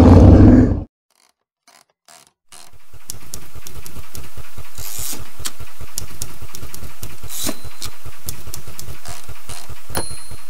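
Intro sound under the title card: a steady mechanical sound that fades in, made of even low pulses about five a second with scattered crackling clicks. It opens with the last of a man's speech, cut off just under a second in, then a short silence.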